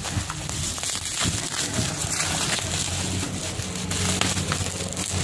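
Plastic bubble wrap crinkling and rustling as hands unwrap a boxed phone, a dense run of small crackles throughout.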